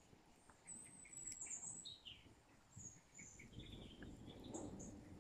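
Faint dusk birdsong: scattered short, high chirps and brief whistled notes from small birds as they settle for the evening.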